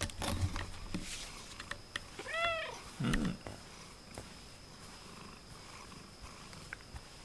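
A colourpoint pet cat purring close up, with one short, high meow about two and a half seconds in, followed at once by a brief low thump.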